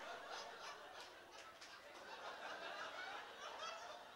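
Faint audience laughter and scattered chuckling.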